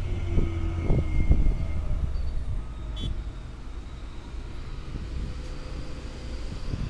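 Heavy truck engine running steadily with a low rumble as it drives along a rough dirt road, with a few short knocks and rattles in the first few seconds.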